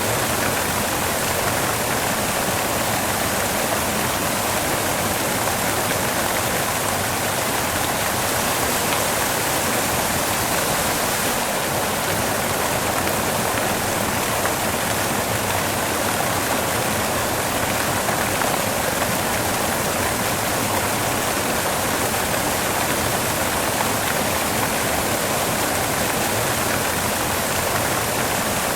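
Steady white noise: an even, unchanging hiss with no rhythm or events.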